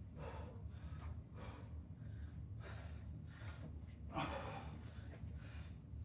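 A man breathing hard between exercise sets: a series of gasping breaths, roughly one a second, the loudest about four seconds in.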